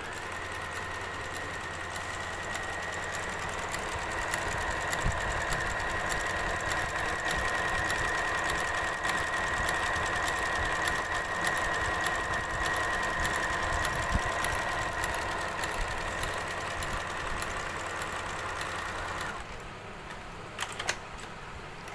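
Juki HZL-7800 computerised sewing machine running at a steady speed, sewing an overlock stitch, its motor giving a steady whine. It stops abruptly near the end, followed by two short clicks.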